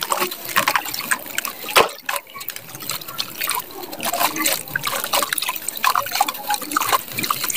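Hands crushing and crumbling lumps of dry grey soil: a dense run of crunching and crackling, with fine powder pouring and trickling down. One sharper crack comes just before two seconds in.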